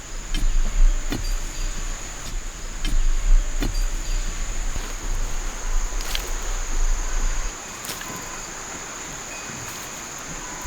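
Insects keeping up a steady high-pitched buzz, with scattered sharp clicks and taps over it. A low rumble underneath drops away about seven and a half seconds in.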